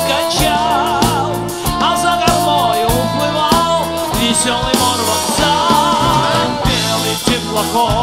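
Pop song with a singer over a band, a steady drum beat and bass.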